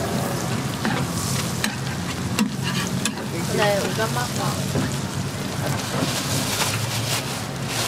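Egg omelet patties sizzling steadily in butter on a flat steel griddle, with a metal spatula scraping and clicking against the griddle every so often.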